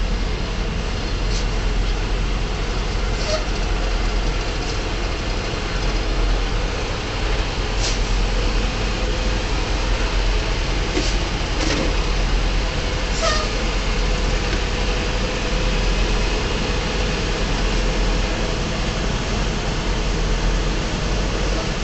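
Semi-truck diesel engine idling, a steady low rumble heard from inside the cab, with a few short sharp high sounds scattered through it.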